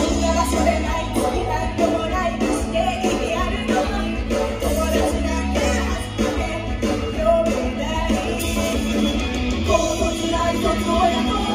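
Japanese idol pop song played loud through a live venue's sound system, with the girls singing into handheld microphones over a steady driving beat.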